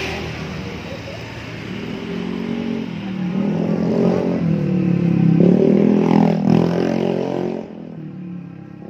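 Motorcycle engine running close by, its pitch rising and falling as it revs. It grows louder through the middle and stops abruptly near the end.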